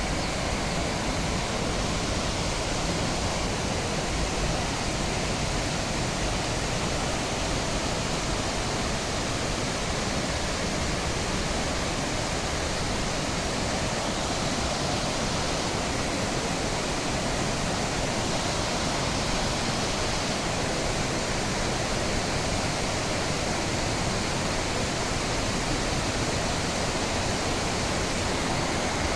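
Fukiware Falls' water rushing and pouring over the rock: a steady, unbroken roar of falling water.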